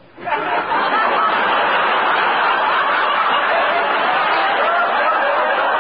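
Live studio audience laughing at a gag, a steady wave of many voices that swells up about a quarter second in and holds, heard on a narrow-band 1950 radio broadcast recording.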